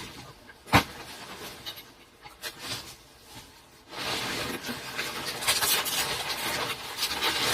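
Hand work on bamboo or wood: a sharp knock about a second in, then several seconds of steady rasping from about halfway through.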